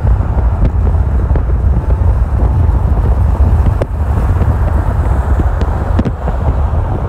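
Loud wind buffeting on the microphone over a deep, steady rumble from a moving vehicle, with scattered light ticks and knocks.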